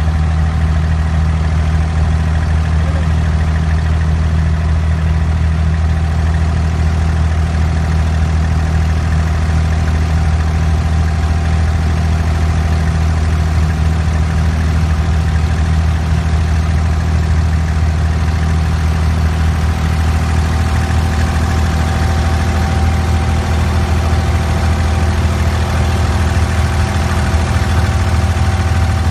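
Diesel engine of a wooden abra water taxi running steadily underway, heard on board: a constant low drone with a thin steady whine above it.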